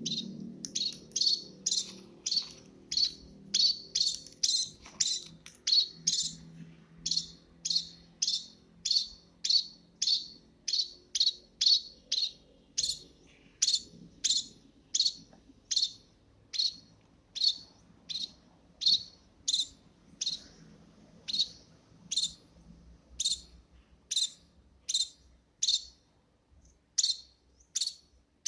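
A small bird chirping over and over, each chirp short and sharp, about three every two seconds in a steady, even run with a brief pause near the end.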